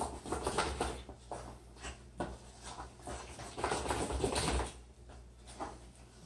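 A spoon stirring thick batter in a stainless steel mixing bowl: irregular scraping and light clicks of the spoon against the metal.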